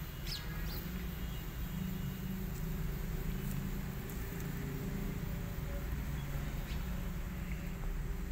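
A steady low rumble, with a few faint high chirps about half a second in.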